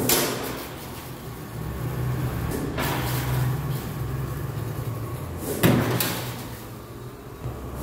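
Sheet-metal cabinet door of a flex printing machine unlatched and swung open with a click and clatter, a further knock about three seconds in, then shut with a loud clunk about five and a half seconds in. A low steady hum runs underneath.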